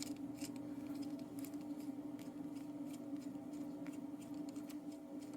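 Faint small clicks and scrapes of a screwdriver working the core-retaining screw on an Abus 72/40 brass padlock while the core is being removed, over a steady low hum.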